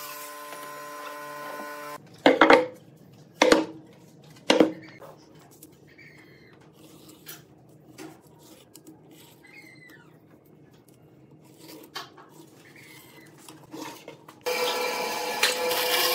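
A small hand-held power tool, an angle grinder with a sanding disc, runs steadily and cuts off about two seconds in. Three sharp wooden knocks follow, then faint scratching of a pencil tracing a cardboard template on a pine board. Near the end a band saw starts running, cutting the board.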